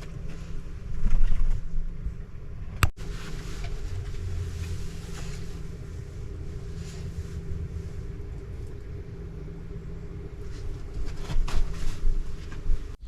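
A vehicle engine running with a steady low rumble, with a few knocks over it.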